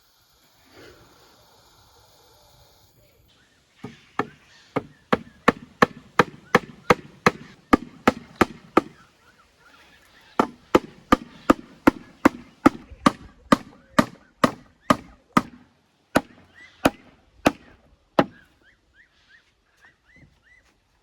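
Knife chopping on a wooden cutting board in quick, even strokes, about two or three a second, in two runs with a short pause between; the second run slows to a few spaced strokes near the end.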